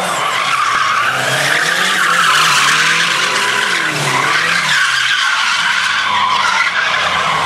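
Chevrolet Chevettes doing burnouts and spins: rear tyres screeching continuously as they spin on the asphalt, over engines revving up and down.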